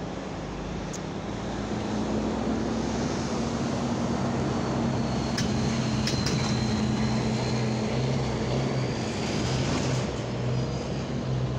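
Steady low mechanical drone, like an engine or motor running, growing slightly louder after a couple of seconds, with a couple of faint clicks near the middle.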